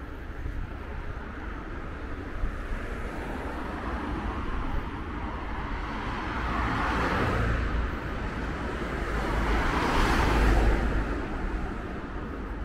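Road traffic: two cars pass one after the other, each a rising and falling rush of tyre and engine noise, the second the loudest, about ten seconds in.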